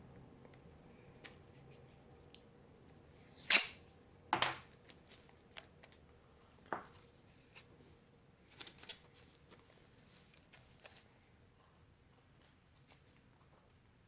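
Tape being pulled and torn off to hold a small wooden model together: a sharp rip about three and a half seconds in, a second shorter one soon after, then scattered light clicks and taps of handling the piece.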